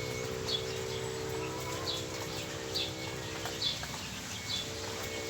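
A small bird chirping repeatedly, short falling chirps about once a second, over a steady low hum.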